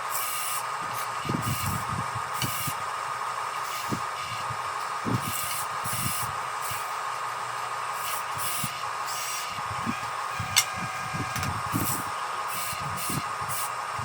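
Electric motors of a radio-controlled model bulldozer whining steadily over a hiss, with irregular low thumps and one sharp click about ten and a half seconds in.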